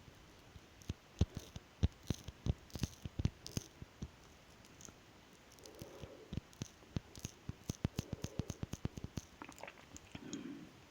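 Close-miked mouth sounds: irregular wet clicks and smacks of chewing, with a faster run of clicks in the second half.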